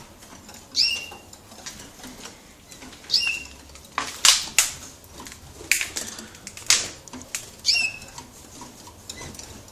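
Caged canaries moving about and calling. Three short call notes each drop quickly in pitch and end on a brief steady note. Between them come wing flutters and sharp clicks as the birds hop on perches and wire.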